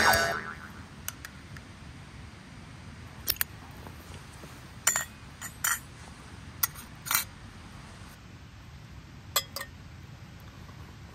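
Metal camp cookware being handled: one sharp clank with a brief ringing tail at the start, then a scattered string of small clicks and clinks.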